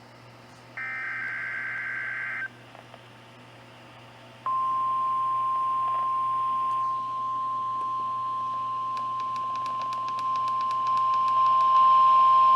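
NOAA Weather Radio weekly test signal. First comes a buzzy burst of the SAME digital header's data tones. About two seconds later the steady 1050 Hz warning alarm tone starts, a single pure note held for about nine seconds. Faint rapid clicking sits under the tone near the end, over a low hum.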